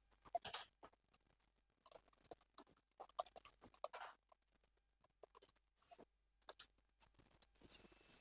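Faint, irregular clicks and taps.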